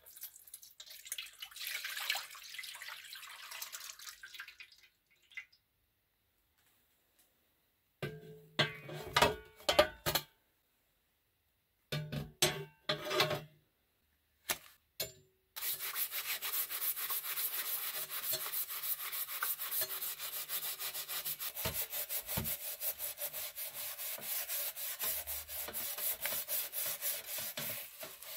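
Green cleaning liquid poured into a metal basin, then a few knocks as metal is handled in it, then a scouring pad scrubbing a rusty steel scissor blade in rapid back-and-forth strokes.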